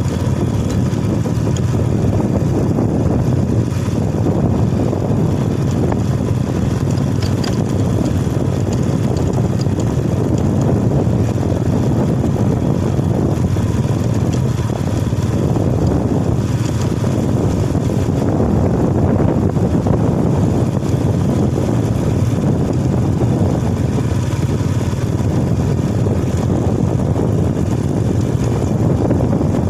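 Motorcycle engine running steadily while riding, mixed with wind rumble on the microphone.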